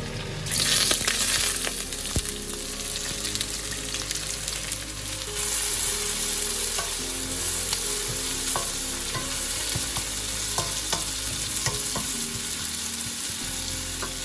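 Food frying in hot oil in a pan, sizzling steadily while it is stirred, with the scrape and tap of a spoon against the pan. The sizzle jumps suddenly about half a second in, as food goes into the oil, and swells again about five seconds in.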